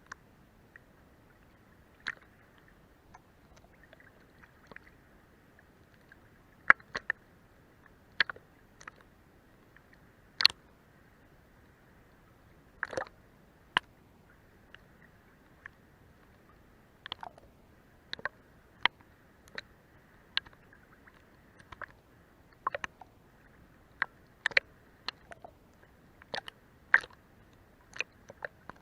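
Sea water lapping against a boat's hull: a faint steady wash with irregular sharp wet slaps and clicks, about one a second.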